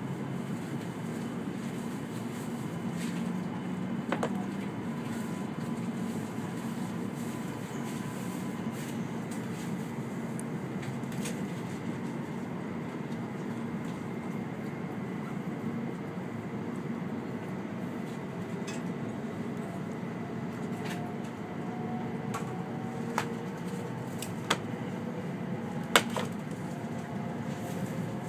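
Steady cabin rumble inside an E2-series Shinkansen car as it starts to move off, with a faint whine slowly rising in pitch in the second half as the train accelerates. A few sharp clicks or knocks come through, the loudest one near the end.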